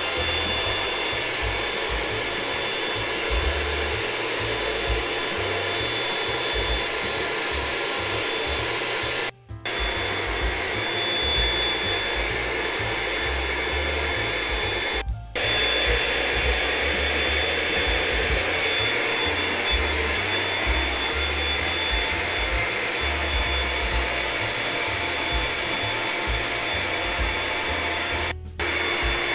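Electric air pump blowing steadily as it inflates an Intex Dura-Beam Deluxe airbed, with a thin high whine over the rush of air. The sound drops out for a moment three times where the footage is cut.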